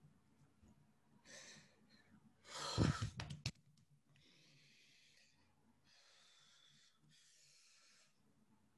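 A man breathing hard through his mouth in frustration, with a loud breathy outburst about three seconds in, then three long, drawn-out breaths.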